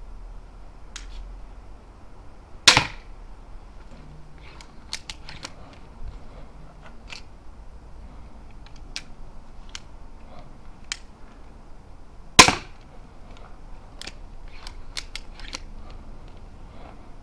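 Pistol crossbow shot twice, a sharp snap about three seconds in and again about twelve seconds in. Between the shots come small clicks and knocks of the crossbow being re-cocked and a bolt being drawn from the quiver and loaded.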